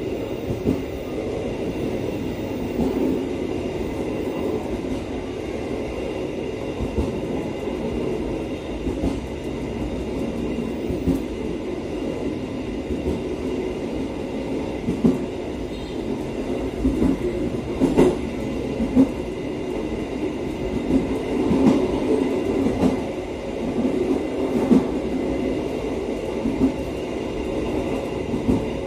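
Gayabaru Malam Selatan passenger train running along the track, heard from the rear of the last carriage: a steady rumble of wheels on rails with irregular clacks and knocks over the rail joints, a sharp knock a little past halfway and busier clacking after that.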